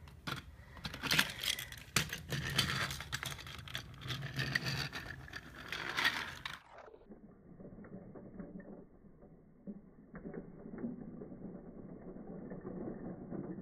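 Plastic toy trains and track pieces clattering and clicking over the steady whir of a small geared toy-train motor. About six and a half seconds in, the sound turns dull and muffled, the clatter slowed down in slow-motion playback.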